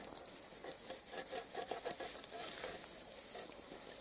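Soft rustling and light scraping of hands handling wet water weed and grass close to the microphone.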